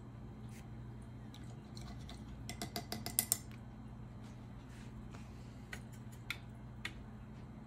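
Faint quick clinking of a paintbrush rattled against a water jar, as the brush is rinsed, then three single light taps of the brush in a metal watercolour palette tin near the end, over a steady low hum.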